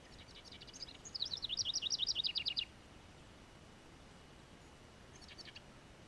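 House wren singing: a few soft high notes build into a loud, rapid trill of falling notes lasting about a second and a half, and a short, fainter phrase follows near the end.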